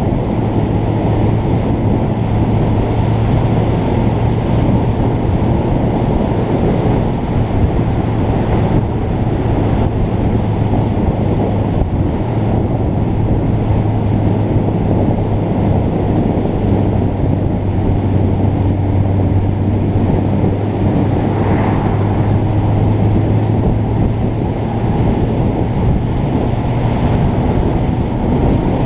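Heavy wind rushing over a motorcycle-mounted action camera's microphone at road speed, with the motorcycle's engine droning steadily beneath it.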